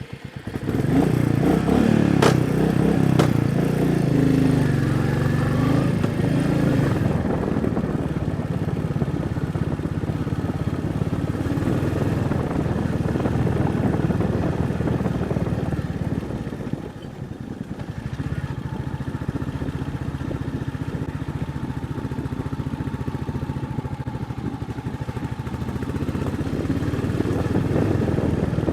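Royal Enfield Meteor 350's single-cylinder engine running while riding, its pitch rising and falling with the throttle for the first several seconds, then steadier. Two sharp knocks about two and three seconds in, and a brief dip in loudness a little past halfway.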